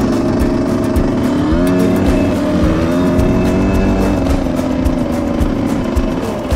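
Dirt bike engine running under the rider, its pitch rising and falling as the throttle opens and closes, over a heavy rumble of wind on the microphone.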